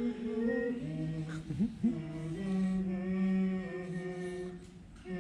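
Slow unaccompanied singing in long held notes that step to a new pitch every second or so.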